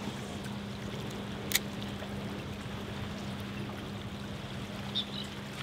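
Steady wash of water moving around pier pilings over a low, steady hum, with one sharp click about a second and a half in.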